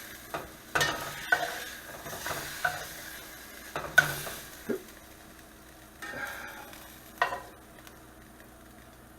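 Fat sizzling in a cast iron chicken fryer, dying down gradually, with several sharp clinks of a utensil against the pan and plate as the browned pork chops are lifted out.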